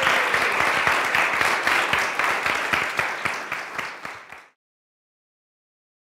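Audience applauding, a dense patter of clapping that thins out and cuts off suddenly about four and a half seconds in.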